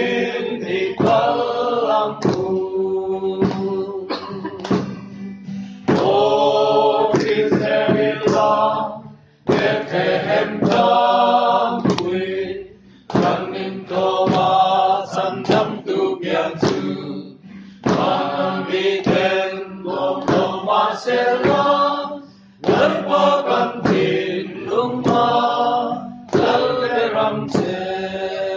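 A group of voices singing a Mizo song together in long phrases, with brief pauses between the lines.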